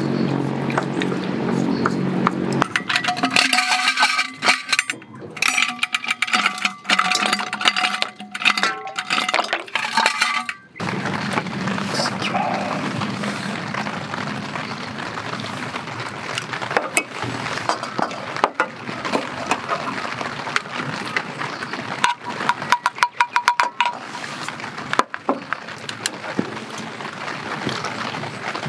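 Ice cubes and wooden chopsticks clinking against a stainless-steel bowl of ice water as cold noodles are stirred and rinsed, with short ringing clinks in clusters, over a steady hiss of light rain.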